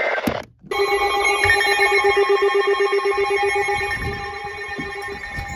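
Weather alert radio sounding its electronic alarm: after a brief cut in the radio audio about half a second in, a loud, steady multi-tone alert starts, its lowest tone pulsing fast. The lowest tone stops shortly before the end while the higher tones carry on. An alarm like this signals an incoming emergency alert, here a severe-weather warning.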